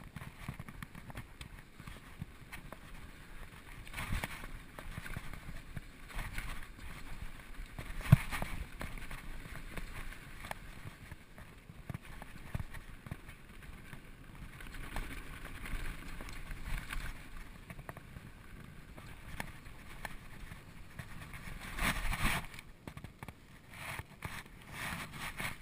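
2012 Specialized SX Trail mountain bike riding down a rough dirt singletrack: tyres on dirt with the bike clattering and knocking over bumps, one sharp knock about eight seconds in.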